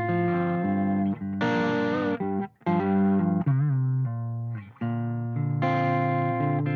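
Electric guitar played through a Panama Shaman 20 amp: ringing, sustained chords and notes with wavering vibrato bends, stopping briefly twice midway.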